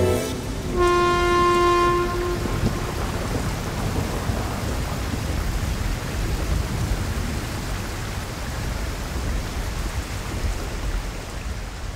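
Steady rain with a low rumble of thunder. About a second in, a train horn sounds one held note for about a second and a half.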